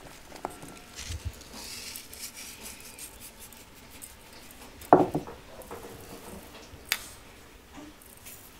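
Kitchen handling sounds: light clicks, rustles and clinks of dishes and utensils, with one louder ringing knock of a dish or bowl about five seconds in and a sharp click about two seconds later.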